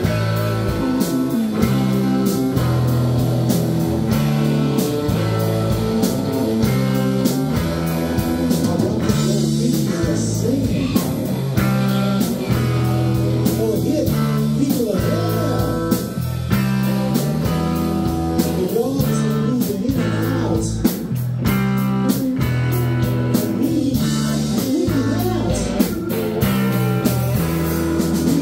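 Live rock band playing loud, full-band music on electric guitars, electric bass and drum kit, with the drums keeping a steady beat.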